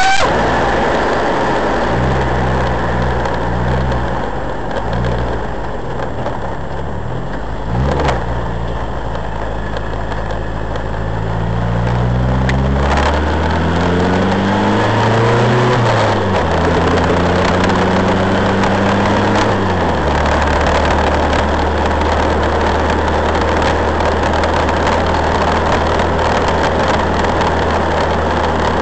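Nissan 1400's engine heard from inside the car: running unevenly at low revs, with a sharp knock about eight seconds in. From about twelve seconds it revs up under acceleration, with a gear change near sixteen seconds, then drops off suddenly about twenty seconds in to a steady low drone over a constant hiss.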